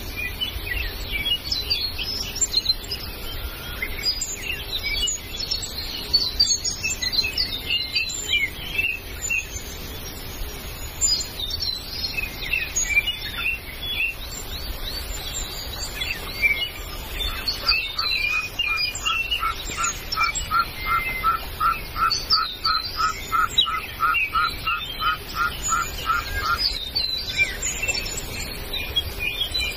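Forest birds chirping and calling together, many short overlapping chirps and trills. Through the second half a run of evenly repeated mid-pitched notes, about three a second, goes on for some nine seconds and then stops.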